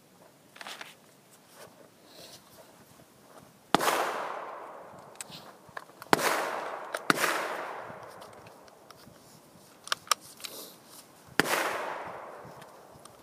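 Four gunshots, the second and third close together, each followed by a long echo fading over a second or two. A few small sharp clicks come between them.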